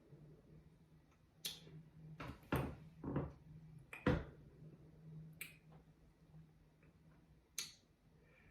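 A handful of short, sharp clicks and small knocks, spaced irregularly and the sharpest about four seconds in, over a faint steady low hum.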